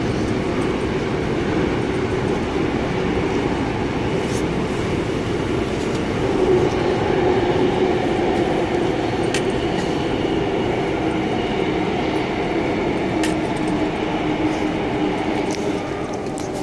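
Seoul Subway Line 9 train running underground, heard from inside the car: a steady rumble of wheels on rail with a low hum, and a few faint clicks.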